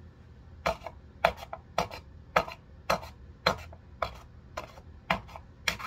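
Knife stabbing down again and again into a jar of peanut butter that won't open: about ten short, hard knocks in an even rhythm, roughly two a second, starting just under a second in.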